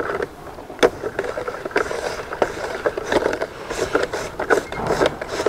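Wooden spoon stirring a liquid strawberry ice cream mix in a metal bowl, knocking and scraping against the metal in quick, uneven strokes.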